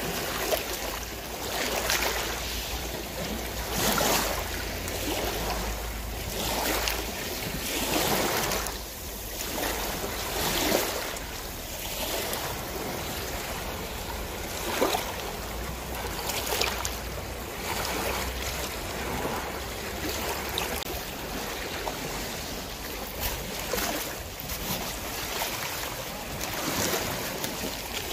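Sea water splashing and rushing along the hull of a small boat cruising along the coast, in irregular swells every second or two over a low steady rumble.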